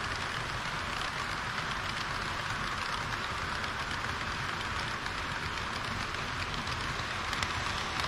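HO-scale model trains rolling over sectional track: a steady rolling hiss from a long train of tank wagons, with fine wheel clicks. Near the end the clicks grow louder as a second model train, a KiHa 40 railcar, passes close by.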